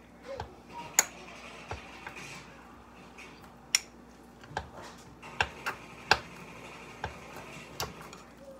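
A spoon stirring and mashing ice cream and milk in a ceramic mug, with a faint scraping and about eight sharp clinks at irregular intervals as it knocks against the mug's sides.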